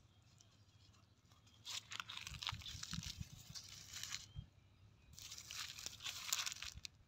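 Dry leaves and grass stems crackling and rustling as a hand scrapes through leaf litter on sandy ground. There are two spells: one starting about two seconds in, and another from about five seconds in.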